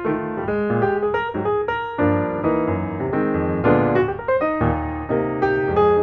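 Background music played on piano: a lively run of notes with chords beneath.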